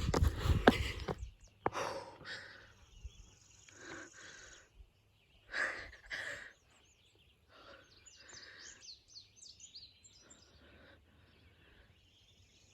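Footsteps scuffing and knocking on rock for about the first second, then a hiker's heavy breathing in a few loud breaths. Birds chirp in short high calls near the end.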